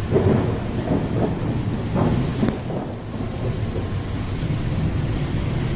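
Storm wind buffeting the microphone over a low rumble of heavy seas breaking against a ship's bow and spray washing across the deck, with louder surges near the start and about two seconds in.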